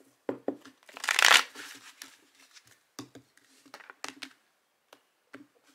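A deck of tarot cards being shuffled and handled: a loud papery swish of the cards about a second in, then scattered light taps as cards are set down on the cloth-covered table.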